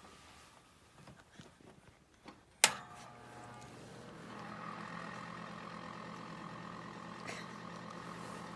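A sharp click about two and a half seconds in as an electric radiant space heater is switched on, followed by a steady electrical hum that slowly grows a little louder, with a higher buzz joining in about four seconds in, as the elements warm up.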